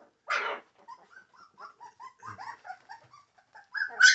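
A litter of very young American Pit Bull Terrier puppies whimpering and squealing in many short, high cries that grow louder near the end, with a brief scuffling noise about half a second in.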